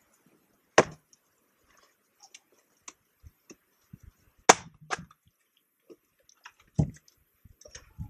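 An axe splitting dry, seasoned firewood on a chopping block. There are two loud, sharp chops about four seconds apart, a lighter strike just after the second, and a duller knock near the end, with small clicks of wood between.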